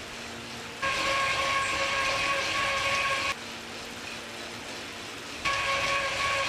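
Wahoo Kickr direct-drive bike trainers being pedalled, switching abruptly back and forth between the quieter 2018 Kickr's low hum and the older 2014 Kickr's much louder high-pitched whine. The whine comes in about a second in, drops back to the hum after about three seconds, and returns near the end.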